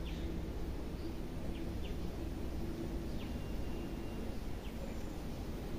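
Small birds chirping faintly in a few short, falling chirps over a steady low background rumble.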